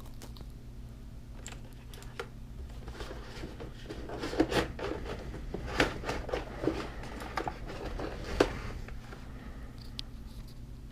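Rustling, scraping and scattered sharp clicks of a boxed computer keyboard and its packaging being handled, over a steady low hum.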